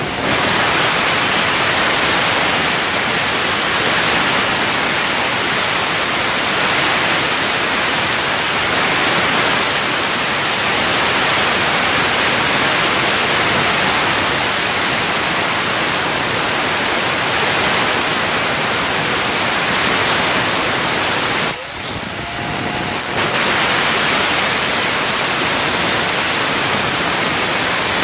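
Handheld power tool grinding metal, a loud, steady, hissing abrasive noise. It eases off briefly about three-quarters of the way through, then picks up again.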